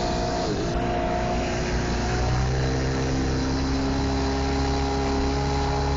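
Mercury 70 hp two-stroke outboard motor running at speed, pushing the boat along, with wind and water rush. Its pitch dips briefly about half a second in, then settles and climbs slowly.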